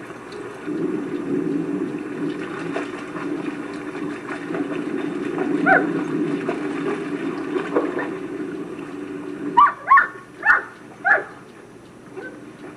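German Shepherd dog barking four times in quick succession, about half a second apart, over a steady low rumble that stops just before the barks.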